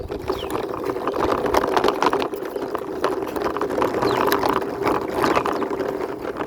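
Toy motorbike pushed along by hand, its small plastic wheels rolling with a steady whirring rattle and a stream of fine clicks.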